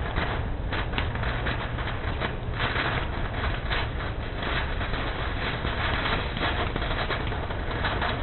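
Fireworks crackling: a dense, continuous patter of small pops and sparks, over a steady low rumble.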